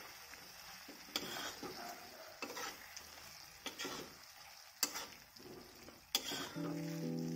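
A spatula stirs boiled eggs through sizzling masala gravy in a metal kadhai, scraping the pan about once a second over a steady sizzle. Background music comes in near the end.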